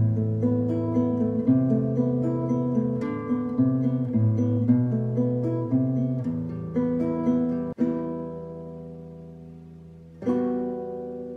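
Classical guitar music: plucked melody notes over a moving bass line. About eight seconds in a chord is left to ring and die away, then another chord is struck near the end and rings.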